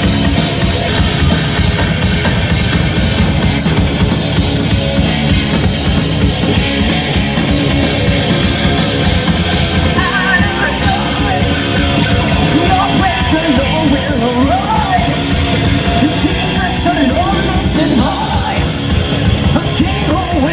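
Live rock band playing loud, with electric bass, guitars and a drum kit; a male singer's vocal comes in about ten seconds in.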